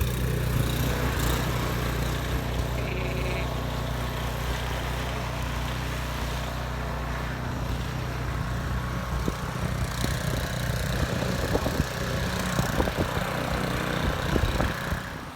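An engine running steadily with a low, even drone that drops away near the end.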